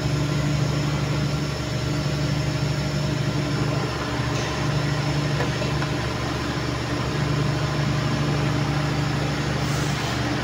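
Steady drone of factory machine tools running, a continuous low hum with several held tones that stay level throughout.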